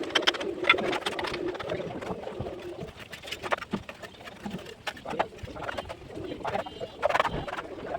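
Irregular sharp taps and knocks from bricklaying work, with a low cooing bird call through the first few seconds.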